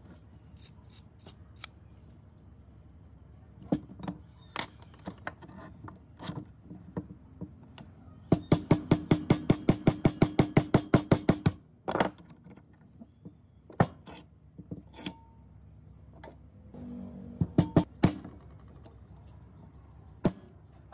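Hammer striking the steel blade of an old rusty hedge shear clamped in a bench vise: scattered single knocks, then a fast run of about five blows a second for some three seconds in the middle, then a few more single knocks.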